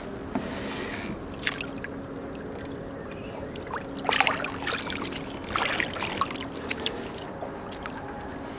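Water splashing and sloshing as a caught fish is lowered by hand over the side of a boat into the river and released, in short bursts about a second and a half in, around four seconds and again near six seconds.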